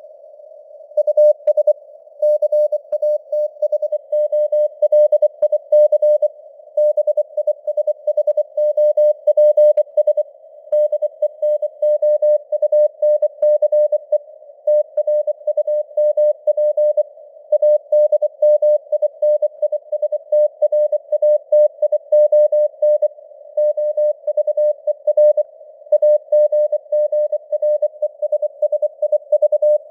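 Morse code (CW) at 24 words per minute: a single tone of about 600 Hz keyed on and off in dots and dashes, with short pauses between words. It sits in simulated radio noise, with a band of hiss heard between the elements, and the signal strength varies as simulated fading (QSB).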